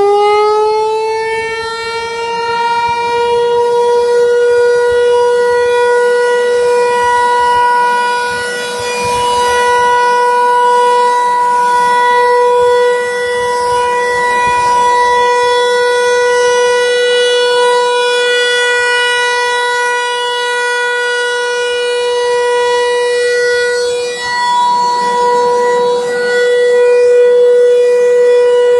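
Federal Signal 508 outdoor warning siren sounding on test. It settles from its wind-up into one loud, steady tone, and its loudness swells and dips a little as it sounds.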